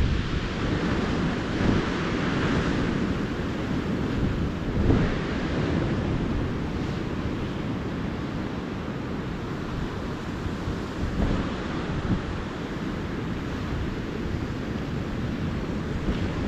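Ocean surf washing onto the beach in a steady rush, with wind buffeting the microphone in low gusts; the surge is strongest at the start and swells again about five seconds in.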